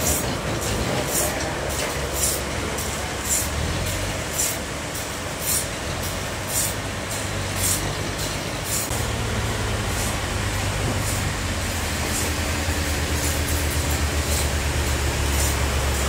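Large sawmill band saw running, with a steady low hum and a short high hiss that repeats about once a second. The low hum grows heavier in the second half.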